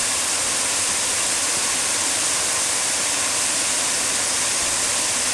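Steady rush of water pouring through a small hydroelectric dam on a burn in spate.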